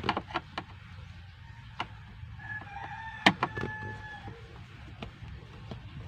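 Screwdriver clicks and taps against the plastic dashboard and the blower resistor block's mounting as it is being unscrewed, with one sharper knock about three seconds in. A rooster crows once in the background, a drawn-out call starting about two and a half seconds in.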